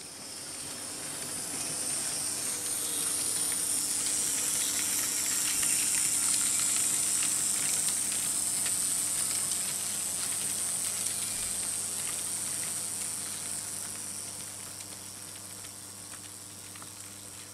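Märklin H0 model train running on metal M-track: a hissing rolling noise with light rail clicks swells over a few seconds and fades again, over a steady motor hum.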